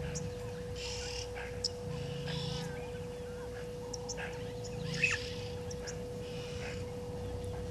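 Outdoor bush ambience: scattered short bird chirps and calls, one louder sharp call about five seconds in, over a steady hum.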